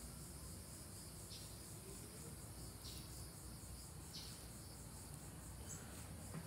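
Faint, steady, high-pitched trilling of insects, with a few faint strokes of a fillet knife slicing through a fish fillet on a wooden cutting board.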